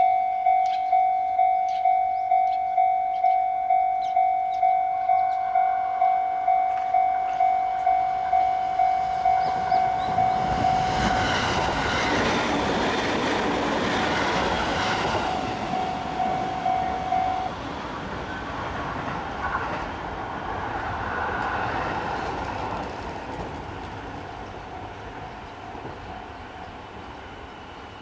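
Level-crossing warning bell ringing in a steady, rapid ding-ding, about two strikes a second, while a train approaches and passes over the crossing. The train's rumble and the clatter of its wheels over the rail joints rise to their loudest from about ten seconds in, and the bell stops about seventeen seconds in as the train noise slowly fades.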